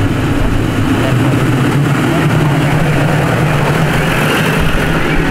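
Off-road four-wheel-drive vehicle's engine running with a steady, even hum while driving.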